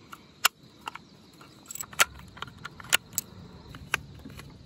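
A handful of sharp clicks, about one a second, from handling a polymer AR-15 magazine: cartridges pressed in and the magazine seated in the rifle's magazine well.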